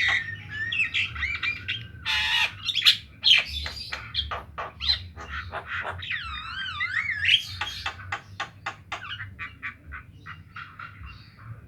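Javan myna song: a fast jumble of harsh squawks, sharp chips and whistles, with a wavering warbled whistle about six seconds in, growing quieter near the end.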